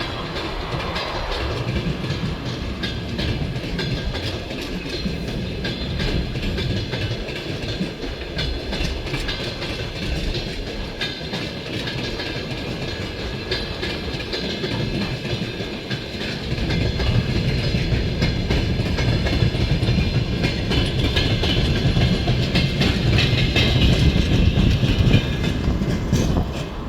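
Freight train wagons rolling past, wheels clicking over the rail joints with a steady rumble that grows louder in the second half.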